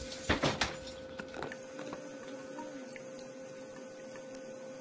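A few sharp knocks in the first second, then a faint steady electrical hum.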